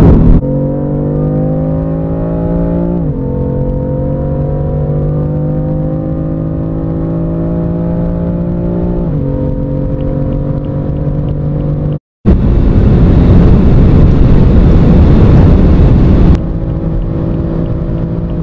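In-car recordings of two turbocharged sports cars under full-throttle acceleration, one after the other. First, the 2015 Mercedes-AMG C63's twin-turbo V8 pulls hard, its pitch climbing slowly and dropping at upshifts about 3 and 9 seconds in. After a brief cut about 12 seconds in, the BMW M4 F82's twin-turbo straight-six is heard accelerating at high speed, with heavy wind and road noise.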